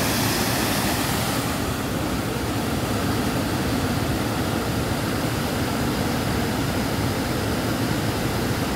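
Steady rushing of a waterfall, a little brighter in the first second or so.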